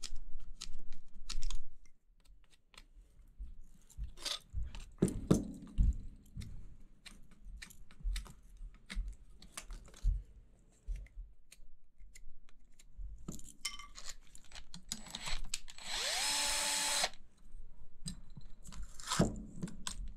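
Metal parts and wires of an old furnace blower motor knocking and clicking as they are handled. Near the end a cordless screwdriver spins up with a rising whine and runs steadily for about a second, with short blips before and after, as the motor's fasteners are removed.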